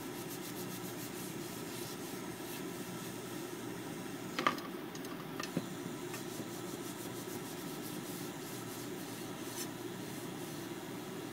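A wad of paper held in chopsticks rubbing over the inside of a square nonstick tamagoyaki pan, over a steady low hum. A sharp knock comes about four and a half seconds in, and a smaller one about a second later.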